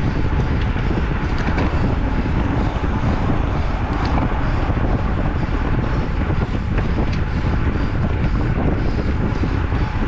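Steady wind buffeting on the microphone while riding a bicycle, mixed with road noise.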